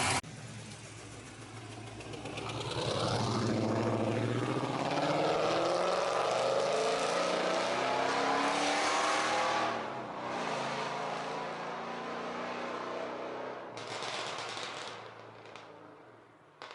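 A car engine accelerating, its pitch rising for several seconds, then dropping off and fading, with a second brief surge of engine noise near the end.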